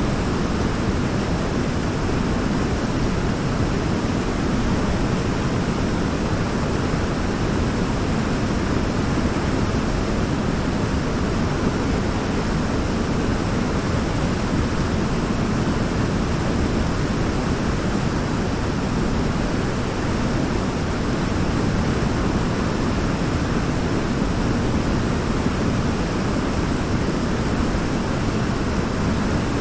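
Waterfall of river water pouring over a large rock: a steady, full rush, strongest in the low range, with no change.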